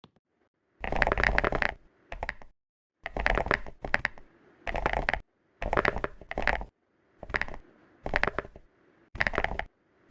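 Crinkling, crunching noises from chocolate and its wrapper, coming in about nine short bursts with quiet gaps between.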